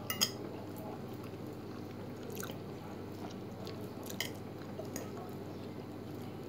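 A person eating spaghetti: chewing, with a few light clicks of a metal fork against the plate, over a steady low hum.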